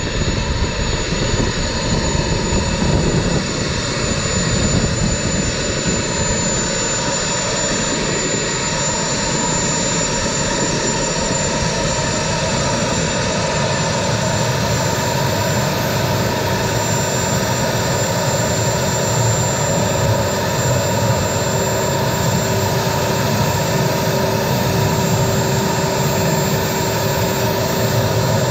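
Gas turbine (turboshaft) engine running steadily with a high whine over a rush of air. About halfway, a further steady lower tone joins in.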